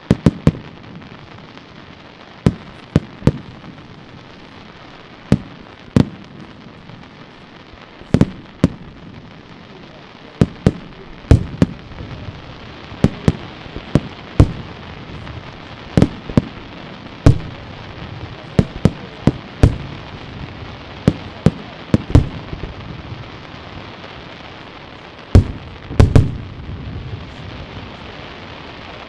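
Aerial firework shells bursting in an irregular series of sharp bangs, some in quick pairs, over a steady hiss. The loudest bangs come near the end.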